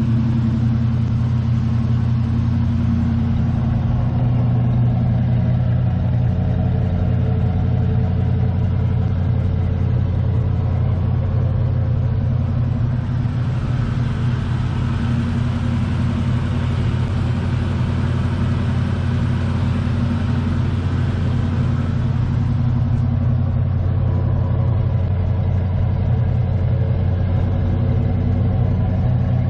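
1973 Mustang's 302 V8 idling steadily soon after a cold start, heard from beside the car through its 2 1/4-inch aluminized exhaust with turbo mufflers and an H-pipe. The tone stays even with no revs, growing brighter and hissier for several seconds midway.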